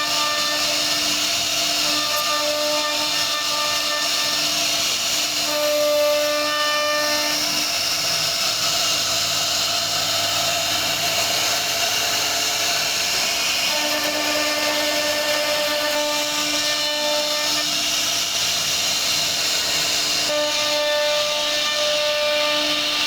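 CNC router spindle cutting wood: a steady hiss of the cut, with a high spindle whine that fades out about seven seconds in and comes back twice.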